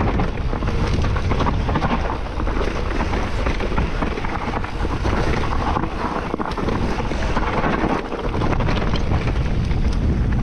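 Wind buffeting the microphone while riding a mountain bike fast down a trail, mixed with the bike's tyres and frame knocking and rattling over the rough ground.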